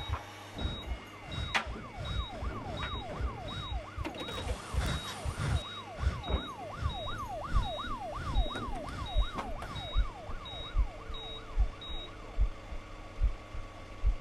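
Emergency vehicle siren in fast yelp mode: a rising wail that drops back and repeats about three times a second. Behind it run a steady high beeping and regular low thuds.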